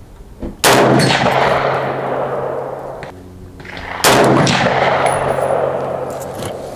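Two rifle shots about three and a half seconds apart, each with a long echoing decay: a Century Arms milled-receiver AK-47 firing PPU 123-grain 7.62x39 rounds.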